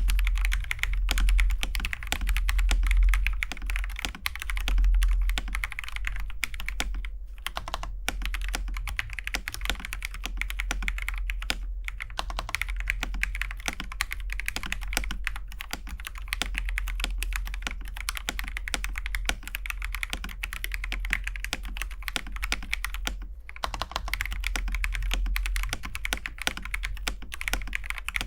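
Fast continuous typing on a TM680 mechanical keyboard with Akko Jelly Pink linear switches, a dense run of key presses broken by a few short pauses.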